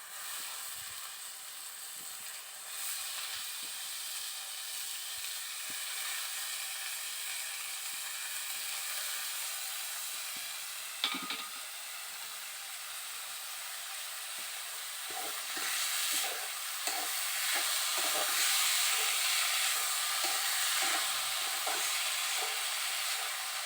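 Boiled banana flower frying and sizzling in hot oil with onion and spices in a pan, stirred with a spatula. There is a single knock about halfway through, and the sizzle gets louder near the end as stirring scrapes repeat.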